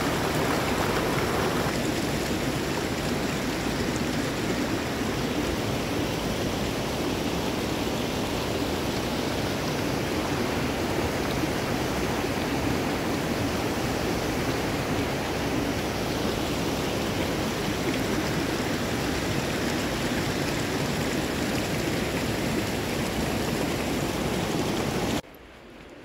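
Eagle Falls' water pouring down, a steady rush of noise that cuts off abruptly about a second before the end.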